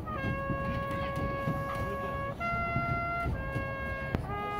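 A brass instrument playing long held notes one at a time, stepping to a new pitch every second or so, over a low crowd murmur; a sharp click about four seconds in.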